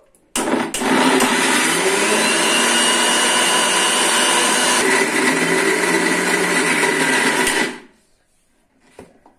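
Electric mixer grinder motor running at full speed, its steel jar grinding a crunchy peanut paste into smooth peanut butter. It starts about half a second in, runs steadily, and stops near the end, winding down briefly.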